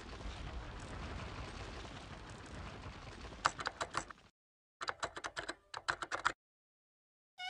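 Sound effects of an animated title: a steady rumbling noise as a wall cracks and crumbles away, then two short runs of rapid typewriter-key clicks as the title letters appear one by one.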